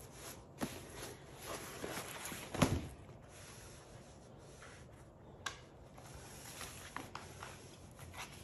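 A quiet room with scattered faint knocks and rustles, and one louder thump about two and a half seconds in.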